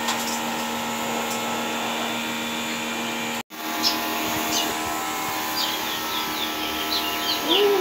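A steady whirring hum with a drone of several even tones, like a small motor or fan, with small birds chirping in quick runs in the background. The sound drops out for an instant about three and a half seconds in.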